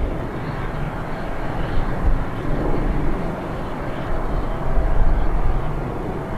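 Boeing 777-281(ER) twin jet engines running at low taxi thrust as the airliner rolls past, a steady rumble with a faint steady tone.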